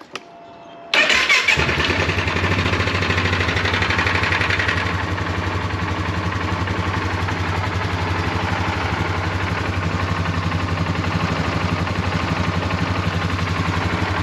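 Polaris ATV engine cranked by its electric starter and firing on the first try about a second in, with no starter grinding, the sign that the repaired starter gear is working. It runs a little louder for the first few seconds, then settles into a steady idle.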